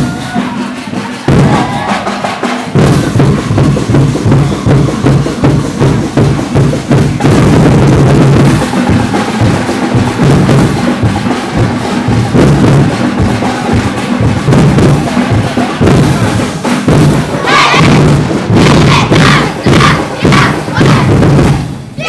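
Street-parade percussion band drumming a fast, driving dance beat on bass and snare drums, with crowd shouts rising over it near the end.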